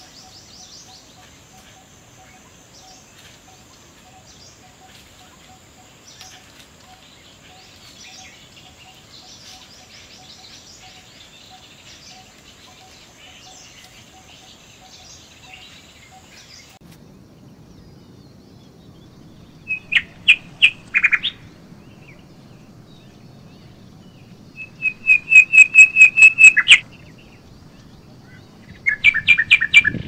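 Wild birds calling: faint scattered chirps for the first half. Then come three loud bursts of fast, evenly repeated sharp call notes, each one to two seconds long: about twenty seconds in, around twenty-five seconds, and near the end.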